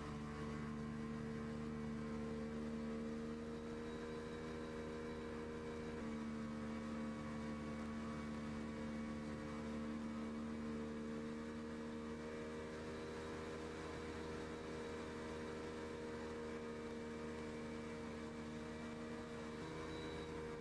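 A boat's motor running at a steady speed, heard as a steady hum of several tones that shifts slightly about six seconds in and again near the end.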